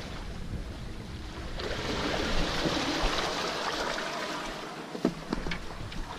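Sea water washing and lapping with wind on the microphone, swelling from about a second and a half in; a couple of light knocks near the end.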